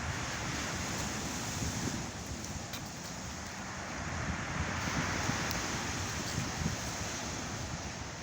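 Steady wind rushing over the microphone, with a wash like water or surf.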